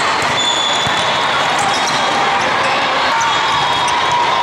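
Volleyball hall din: sneakers squeaking on the court tiles, a few sharp ball contacts, and voices from players and spectators across many courts. It runs at a steady level, with many short high squeaks.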